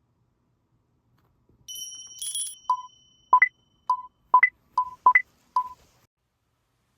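A small electronic device beeping: a brief high tone with a short rustle, then about seven short, sharp beeps over three seconds.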